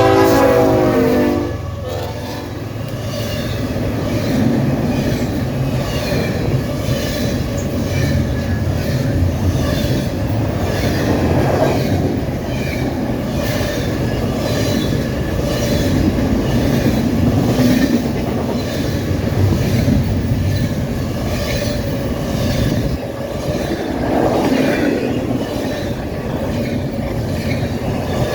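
Diesel locomotive horn chord ending about a second and a half in, then a CSX intermodal freight train rolling past at speed, its wheels clicking rhythmically over the rail joints.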